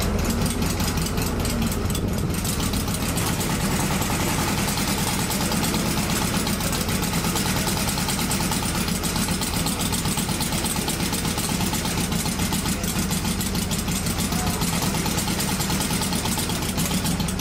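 Quarter-scale model V8 aero engine running steadily and driving its propeller, with a rapid, even firing beat.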